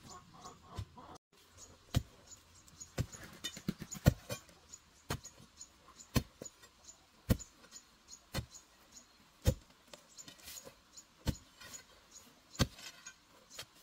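Long-handled digging tool striking stony dirt, about ten sharp chopping blows, roughly one a second.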